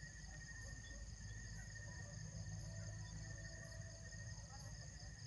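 Night insects, crickets, chirring faintly as a steady high-pitched drone of several unbroken tones, with a fainter high pulse repeating about once a second. A low rumble runs underneath.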